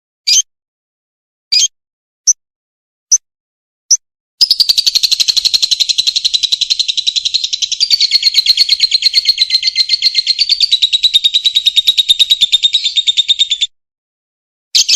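Lovebird calling: a few short sharp chirps, then about four seconds in a long, very rapid chattering trill (the 'ngekek panjang') that runs for about nine seconds and stops abruptly, followed by one more chirp near the end.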